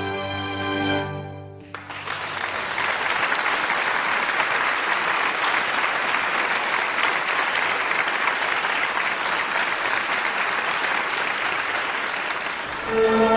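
Held notes of instrumental music end about a second and a half in, then an audience applauds steadily for about eleven seconds, and music starts again near the end.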